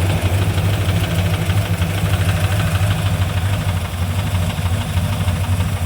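V8 engine with a Comp Cams XR270HR hydraulic roller camshaft idling steadily, with a fast, even knocking tick riding over the idle. The owner wonders whether the knock is rod knock.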